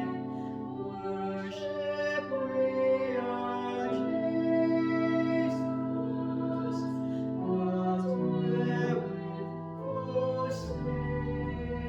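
Slow music: singing over held, sustained chords, with a deep bass note coming in near the end.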